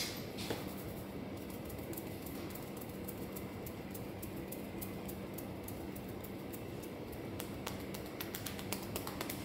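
Faint, scattered small clicks and crackles of fingers working through damp hair, coming more often near the end, over a steady low hum of the room.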